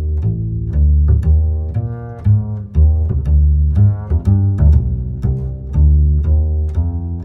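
Background music: a low string bass line of short plucked notes, the pitch changing about twice a second.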